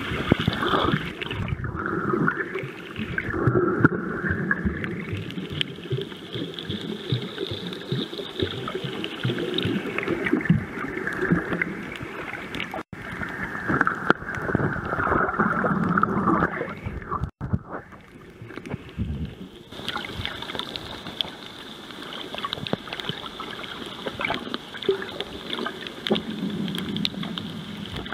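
Water sloshing and bubbling around a camera held underwater while snorkeling, with scattered crackles and ticks. The sound drops out abruptly for an instant twice, a few seconds apart.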